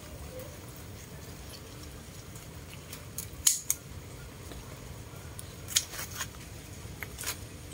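Scissors snipping wild betel (lá lốt) leaf stems off the plant: a few short, sharp snips at irregular intervals, two a little past three seconds in and a quick cluster around six seconds, with another near the end.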